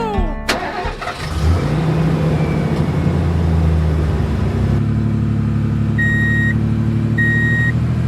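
Truck engine running steadily, with a reversing alarm beeping twice near the end, about once a second.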